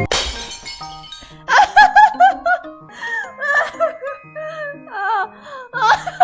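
A person sneezing once, a sudden breathy burst about a second long. From about a second and a half in, high-pitched laughter follows in short broken bursts.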